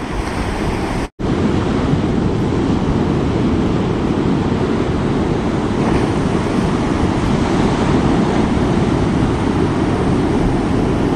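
Ocean surf breaking and washing up the beach in a steady, loud rush, with wind buffeting the microphone. The sound cuts out for an instant about a second in.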